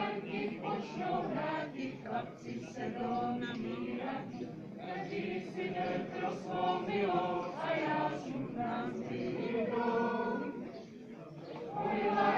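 Group of voices singing a Czech folk song without instruments, in phrases, with a short pause about two-thirds of the way through before the next line starts.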